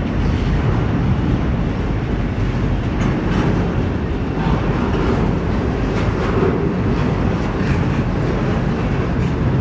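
Double-stack intermodal freight train rolling past: a steady rumble of steel wheels on rail, with occasional clacks.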